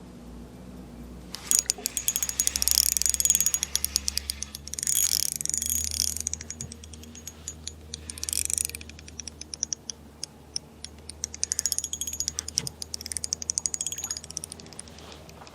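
Spinning reel drag clicking in fast, even runs as a fish pulls line, in three spells with pauses between. The Shimano Soare XR's drag runs on a felt washer with drag grease, so it gives out line smoothly with distinct, countable clicks and no surging.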